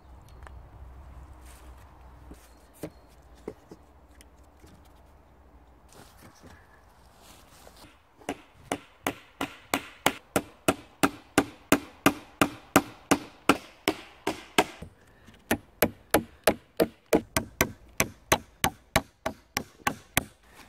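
Nails being driven into wooden sticks with the back of an axe: a fast, even run of sharp strikes, about three a second, beginning about eight seconds in, with a short break about halfway through. Before that, only a few faint knocks.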